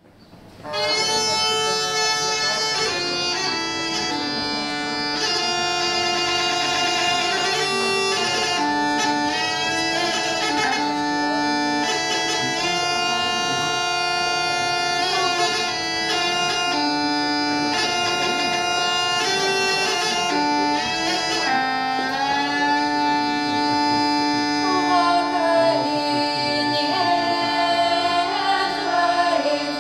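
Lithuanian bagpipe (dūdmaišis) playing a slow melody over a steady drone, starting about a second in. Near the end, singing voices begin to come in over it.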